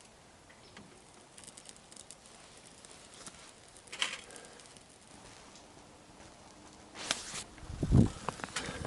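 Quiet rustling and light clicks of handling, with a short scraping sound about seven seconds in and a dull thump about a second later.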